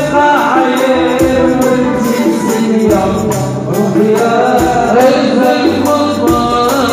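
Live Moroccan malhoun band music: a male voice singing over a tambourine, hand drums and drum kit keeping a steady beat.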